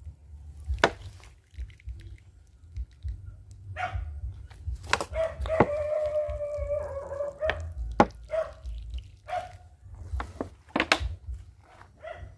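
A rooster crowing, one held call of about two and a half seconds near the middle, with a few short calls before and after it. Several sharp clicks stand out louder than the crow, over a low rumble.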